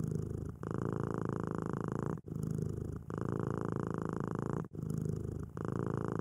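Sleeping cat purring, a continuous purr that breaks off briefly with each breath, long and short stretches alternating.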